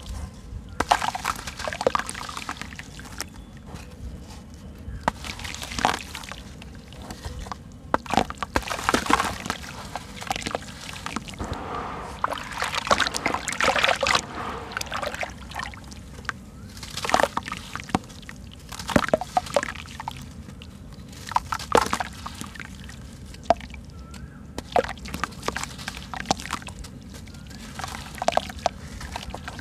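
Soft sand-cement chunks crumbled by hand over a basin of water, wet grit falling into the water and hands splashing as they dip and squeeze the chunks, in irregular bursts.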